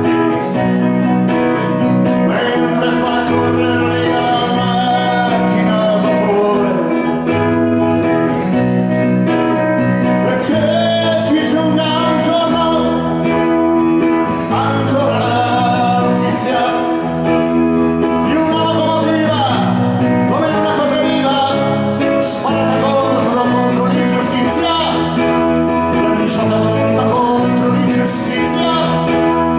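Live band music: a man sings into a microphone over electric guitar, keyboards and a steady bass line, with cymbal crashes marking the beat.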